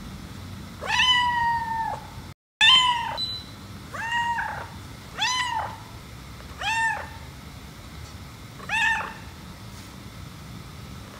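Domestic cat meowing six times: a long first meow, then shorter ones coming further apart.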